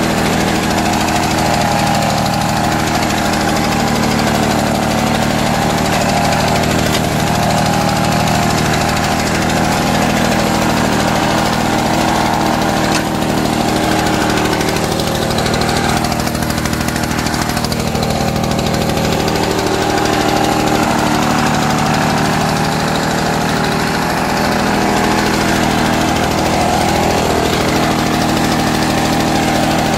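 Victa Cortina 2 rotary lawn mower's 125cc two-stroke engine running steadily as it is pushed over the lawn mowing grass.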